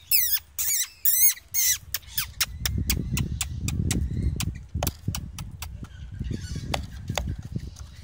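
Parrots screeching about four times in quick succession, harsh, wavering high calls, followed by a run of short sharp taps and clicks over a low rumble.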